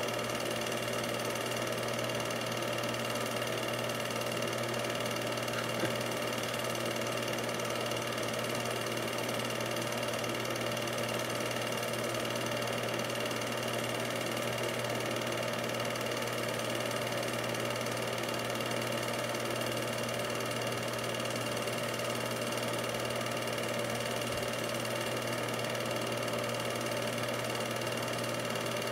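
An 8mm film projector running: a steady mechanical whirr and hum that does not change across the picture's scene cuts.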